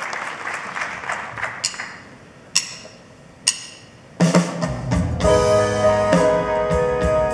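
Audience applause dies away. Three sharp, evenly spaced clicks about a second apart give a count-in. A live band then comes in about four seconds in, playing the song's opening on keyboards with bass and drums.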